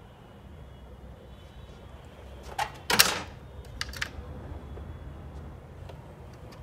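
Steel drawer of a TOTAL tool cabinet pushed shut, closing with one loud clack about three seconds in. A couple of lighter clicks follow about a second later as the next drawer is pulled open on its runners.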